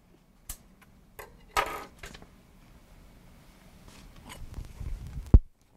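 Faint handling clicks and a short rustle, then one sharp snip near the end as cutters cut through the end of the 3D-printer filament.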